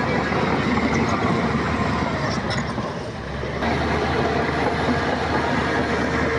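Crawler bulldozer working: diesel engine running under load with steel tracks clanking and a few short squeaks, the noise easing for a moment about halfway through and then picking up again.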